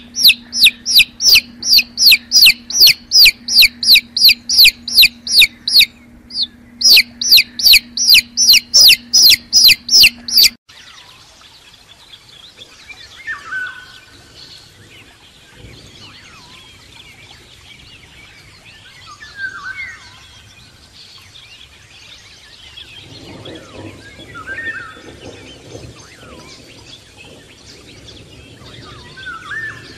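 Newly hatched chicks peeping loudly and rapidly, about two or three high falling peeps a second, with a short pause and a low steady hum underneath. The peeping cuts off abruptly about ten seconds in, leaving quieter outdoor birdsong with a short call every five seconds or so.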